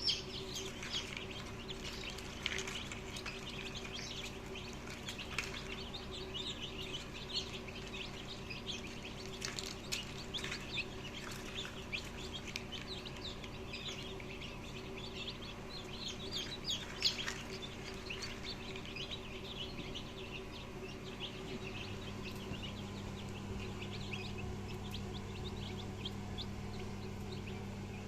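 A crowd of hatched chicks peeping, many short high cheeps overlapping throughout. A steady low hum runs underneath and grows louder about three-quarters of the way through.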